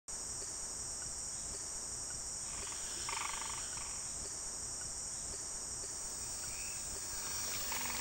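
Steady, high-pitched chorus of rainforest insects. A rapid pulsed trill of another animal rises over it about three seconds in and again near the end.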